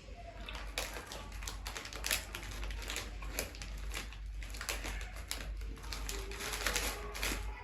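Close-up chewing of a mango jelly bean: a quick, irregular run of small wet clicks and smacks from the mouth.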